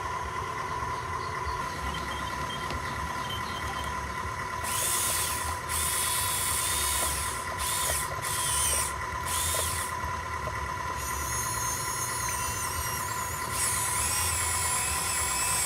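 Small electric motors and gearboxes of a radio-controlled toy excavator whirring in repeated high-pitched bursts, several short ones and then two longer runs, over a steady whine.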